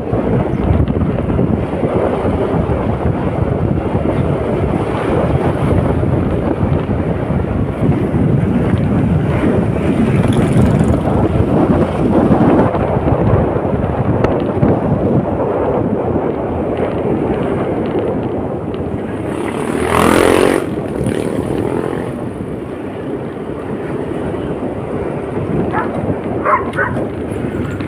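Motorcycle riding along, with wind noise on the microphone over the steady sound of the bike and road. A brief, louder sound stands out about two-thirds of the way through.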